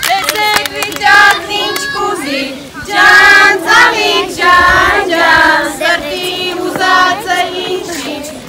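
A group of young children singing a song together, with adult women's voices joining in.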